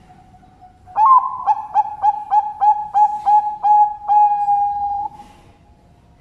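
Zebra dove (Bangkok perkutut) cooing. Starting about a second in, it gives a quick run of about ten short, evenly spaced coos, then one long held note of about a second.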